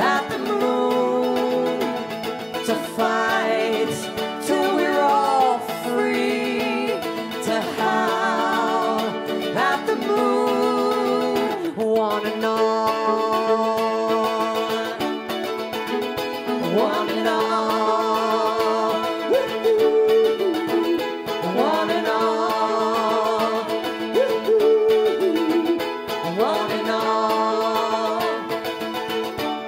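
Live folk-rock band playing an instrumental passage with no sung words: mandolin and other plucked strings strumming, a fiddle carrying a wavering melody line, and upright bass and drums underneath.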